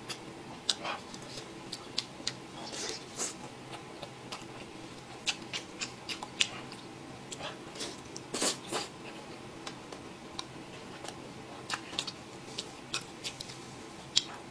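Mouth sounds of eating a chicken drumstick: chewing and smacking, with short wet clicks scattered throughout. The loudest comes about eight and a half seconds in.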